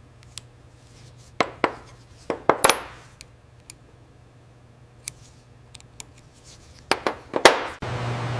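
Small metal objects clinking and tapping: about a dozen short, sharp strikes at irregular intervals, bunched into two clusters, some with a brief ring, over a faint low hum.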